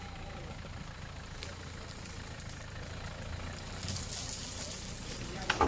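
Land Rover Defender pickup's engine running steadily at low revs as it crawls over rough woodland ground. A high hiss rises about four seconds in, and a single sharp knock comes near the end.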